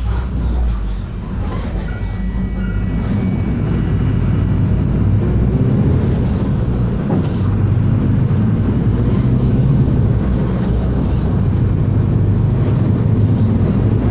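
Inside a moving city bus: the engine and road noise make a steady low rumble, which grows louder over the first few seconds and then holds.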